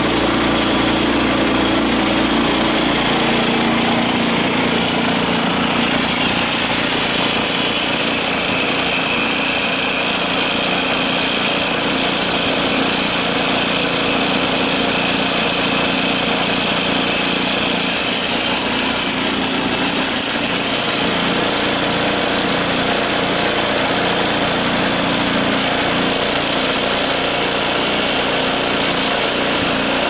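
13 hp Honda-clone single-cylinder gasoline engine on a skid-steer-mounted snowblower running steadily, just started, its note settling slightly lower a few seconds in.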